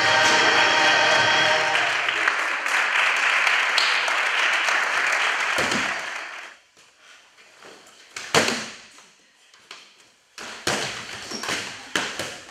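Music ending, with audience applause carrying on after it and fading out about six seconds in. Then a loud thump about eight seconds in, followed by scattered knocks and taps on a stage floor.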